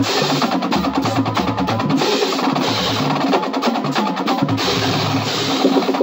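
Marching band drumline playing a cadence: snare drums, tenor drums and pitched bass drums in fast, dense rhythm, with the cymbal line crashing several times. The whole line stops together right at the end.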